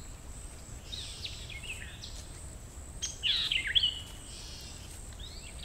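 Birds chirping in short, quick calls, loudest about three seconds in, over a faint steady outdoor background with a thin high tone.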